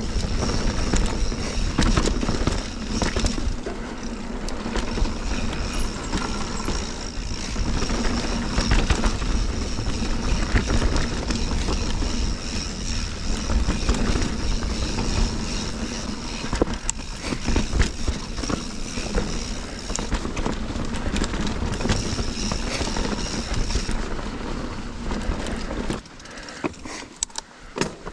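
Mountain bike being ridden over rocky singletrack, heard from an action camera on the rider or bike: tyre noise and wind rumble on the microphone, with frequent rattles and knocks from the bike and a high buzz that comes and goes. It goes quieter for the last couple of seconds.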